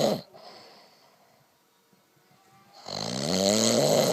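A man snoring. One loud snore ends just after the start and is followed by a soft breath out; after a pause of about two seconds a second loud snore begins, rising in pitch, and stops near the end.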